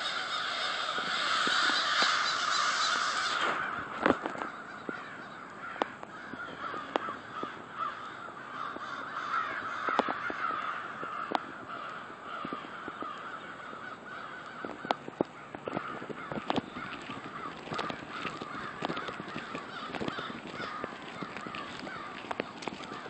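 A large flock of American crows cawing at once in a dense, overlapping chorus, loudest for the first few seconds.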